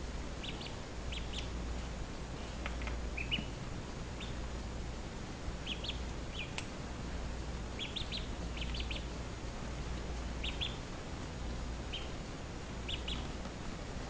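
Domestic duckling peeping: short high chirps, singly or in quick twos and threes, every second or two.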